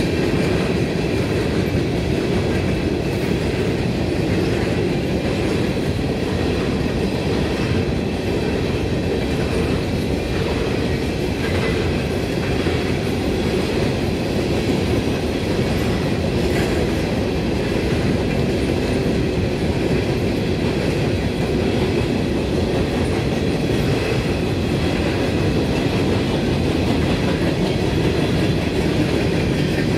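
Empty coal hopper cars of a freight train rolling past, with a steady rumble and the clatter of wheels on the rails.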